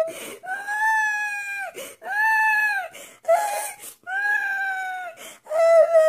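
A grown man crying like a baby in a high-pitched voice: a run of wailing cries, each rising and then falling over about a second, broken by sharp gasping breaths, with a long held wail starting near the end.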